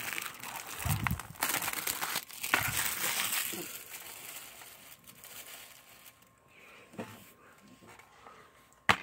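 Plastic shrink-wrap crinkling as it is pulled off and crumpled from a DVD case, fading out after about four seconds. Near the end comes one sharp click, the plastic DVD case snapping open.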